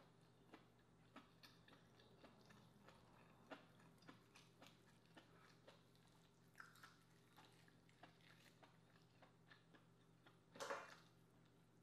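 Faint, wet chewing and mouth clicks from eating lobster meat, irregular small smacks a few times a second. Near the end, a louder brief crackle as a piece of cooked lobster shell is pulled apart by hand.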